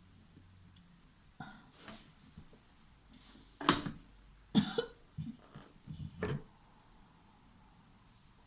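A woman coughing while breathing in steam from a bowl of hot water. Two sharp coughs about a second apart come near the middle, followed by a run of smaller coughs and throat clearing.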